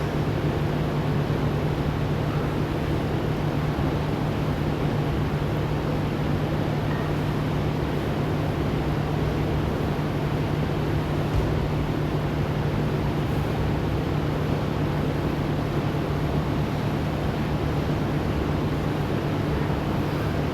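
A steady low hum over a constant rushing noise, unchanging throughout, like a large fan or machine running.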